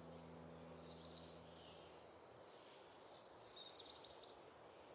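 Quiet background ambience with faint bird chirping: a short run of chirps about a second in and another, slightly louder, near the end.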